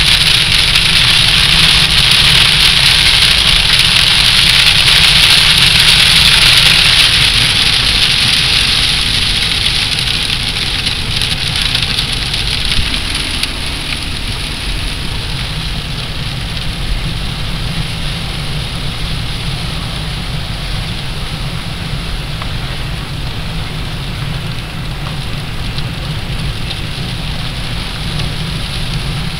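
Car cabin noise while driving on a wet road in rain: a steady hiss of tyres on wet asphalt and rain on the windscreen over a low engine and road rumble. The hiss is strongest for the first seven or eight seconds, then eases to a lower steady level.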